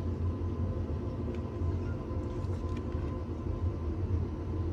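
Steady low hum and rumble of room background noise, with a few faint soft clicks as oracle cards are handled.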